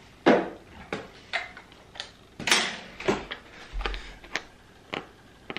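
Camera lenses being handled on a desk: a string of about a dozen sharp clicks and knocks at uneven spacing, the loudest just after the start and midway, with a brief dull low bump a little later.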